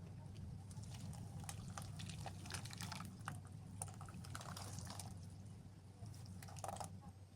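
Liquid being poured in a kitchen, with small wet clicks and splashes scattered through it, over a steady low hum.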